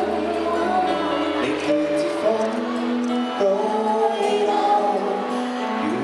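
A man and a woman singing a duet through microphones over a small live band with acoustic guitar and bass guitar; near the end the woman lowers her microphone and the man sings on alone.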